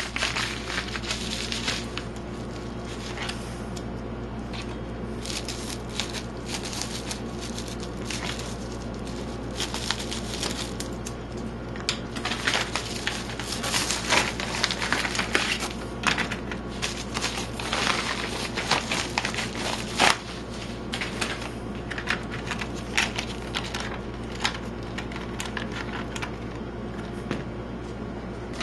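Plastic packaging of a RAM memory module being handled, with irregular crinkling and clicking over a steady low hum.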